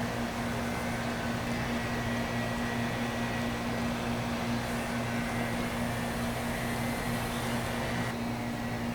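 Steady hum of a running electric motor: a low drone with a thin high tone over a hiss. The hiss above it drops away near the end.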